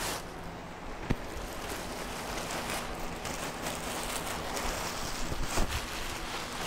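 Black plastic trash bag rustling and crinkling as it is pulled and bunched off an engine block, with a sharp knock about a second in and another near the end.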